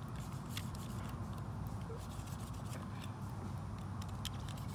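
Faint small scrapes and ticks of a blade cutting off the excess end of a tire plug sticking out of the tread, over a steady low background hum.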